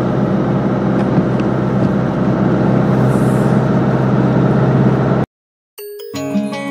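Steady road and engine noise inside a moving car's cabin, cut off abruptly about five seconds in. After a brief silence, tinkling background music with distinct notes begins near the end.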